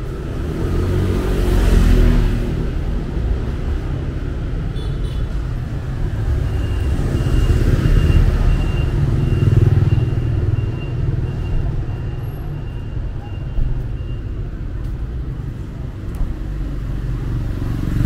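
City street traffic: a steady low rumble of motor vehicles, swelling as one passes about two seconds in and again as more pass around eight to ten seconds in.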